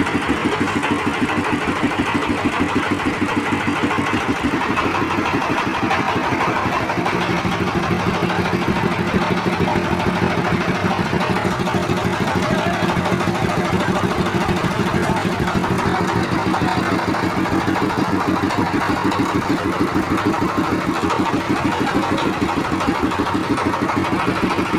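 An engine running steadily at constant speed, with a fast, even thumping beat over a steady hum.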